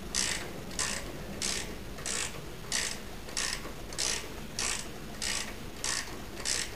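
Socket ratchet clicking in short bursts, about three every two seconds, as its handle is swung back and forth to cut threads with a half-inch-20 tap. The ratchet's back is centred on the lathe tailstock.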